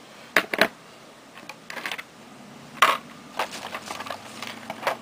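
Sharp clicks and taps of a Sansa Fuze MP3 player and a hard plastic blister pack being handled and set down on a wooden table. The loudest knock comes nearly three seconds in, with lighter taps after it.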